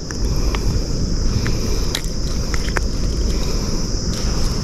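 Wind rumbling steadily on the microphone over a steady high insect drone, with a few faint clicks of pliers on a fish hook as it is worked out of a fish's mouth.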